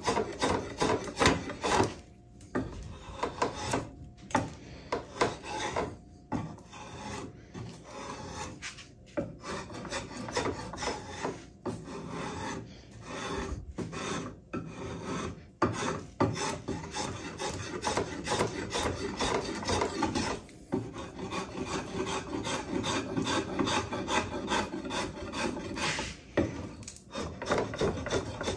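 Drawknife pulled in repeated strokes along a piece of hard hickory, shaving it; each stroke is a scraping cut, with short pauses between strokes every one to two seconds or so.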